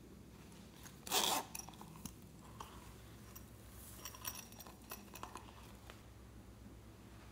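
The zipper of a small silicone pouch pulled open once, about a second in, then light scattered clicks and patters as sequins are shaken out of the pouch into a glass dish.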